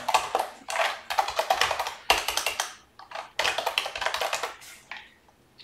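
Fast typing on a computer keyboard: quick runs of keystrokes with a brief pause about three seconds in, stopping shortly before the end.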